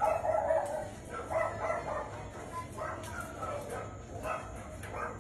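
A series of short animal calls, about one a second.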